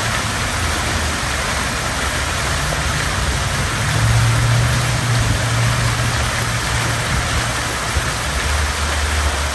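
Water cascading down the tiers of a large outdoor fountain and splashing into its basin: a steady rushing splash, with a low rumble underneath.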